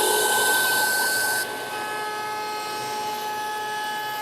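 Router spinning at speed in a router table together with a dust extractor, a steady whine with several held tones. About a second and a half in the level drops suddenly and the high hiss falls away, while a lower whine carries on.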